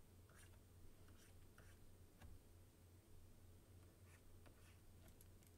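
Faint scratching of a stylus on a graphics tablet in short, scattered strokes while sketching, over a steady low hum.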